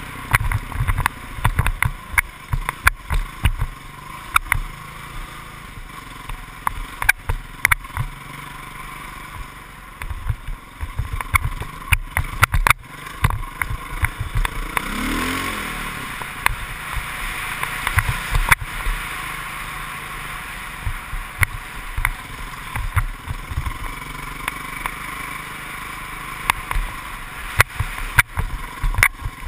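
Off-road vehicle engine running under load while riding a bumpy dirt trail, heard through a helmet-mounted action camera's housing, with frequent knocks and rattles from the bumps. About halfway through the engine revs up and back down once.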